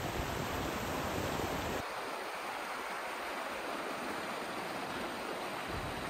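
Snow-fed alpine stream rushing and splashing over granite boulders in small cascades, a steady rush of water. About two seconds in, the low rumble drops away and the water sounds lighter.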